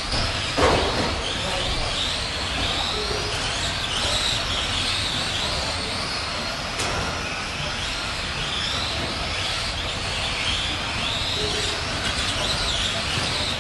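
Electric motors and gears of several Tamiya Euro Truck RC racers whining, rising and falling in pitch as throttle goes on and off through the corners. A sharp knock about half a second in.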